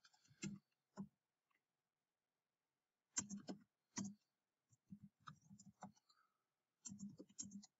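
Faint computer keyboard keystrokes, typed in short runs with pauses between them: a couple of taps at the start, then a quick run about three seconds in, more around five to six seconds, and another run near the end.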